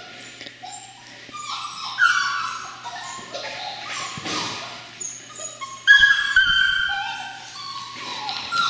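Several seven-week-old border collie puppies whining and yipping in short, overlapping, rising and falling cries, the loudest about two and six seconds in. The whining is a sign that they are unhappy at being shut in an unfamiliar place.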